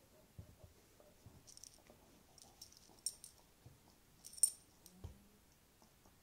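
Faint light clinks of a large dog's metal collar tag, a few seconds apart, with soft low thumps as the dog noses at a red toy held to its mouth.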